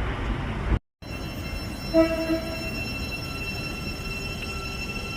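A train's horn sounds one short blast about two seconds in, over the steady running hum and whine of a train. The sound cuts out briefly near the start.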